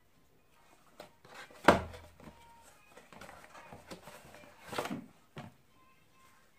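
Cardboard box of a wireless charger being handled and opened on a table: a sharp knock about two seconds in, light rustling and scraping, and another knock near five seconds.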